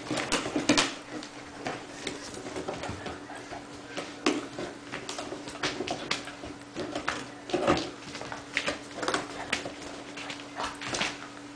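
Six-week-old puppy chewing and tearing at the edge of a cardboard box, a run of short, irregular crunches and rips, with a few puppy whimpers.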